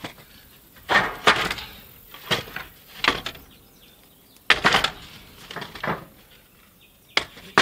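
Wooden plantation shutters knocking and clattering against a wooden frame as they are handled and laid in place: a scattered series of sharp wooden knocks.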